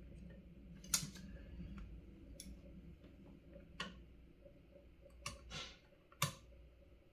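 Small hand tools clicking and tapping on a circuit board during SMD soldering work: about six sharp, separate clicks at irregular intervals, the loudest about a second in.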